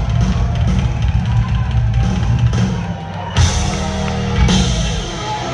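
Live rock drum kit playing through a concert PA, with a steady bass drum and two cymbal crashes, one about three and a half seconds in and another a second later.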